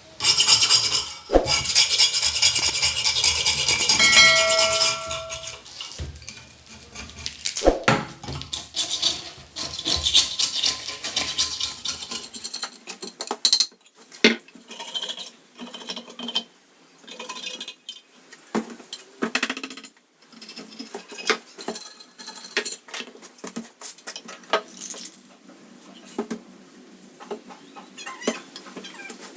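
Metalwork on a two-stroke three-wheeler's silencer. A loud rasping metal scrape lasts about five seconds, with the metal ringing, then comes a long run of sharp metal clinks and taps as tools and parts are handled.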